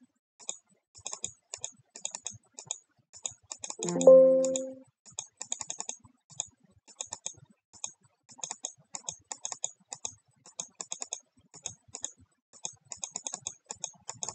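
Computer keyboard keystrokes tapping in quick, uneven runs as values are typed cell by cell into a spreadsheet-style table. About four seconds in, a short electronic chime of several pitches sounds for just under a second, louder than the typing.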